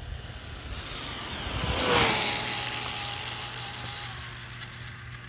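Traxxas Bandit VXL RC car's brushless motor whining as it speeds past at over 80 mph, swelling to its loudest about two seconds in, its pitch dropping as it goes by, then fading away.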